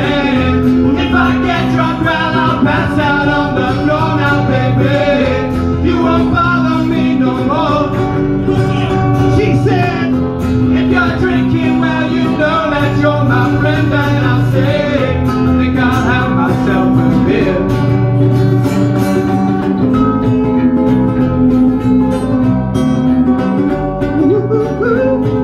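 Live acoustic band playing: strummed acoustic guitars and an electric bass guitar, with male voices singing over them.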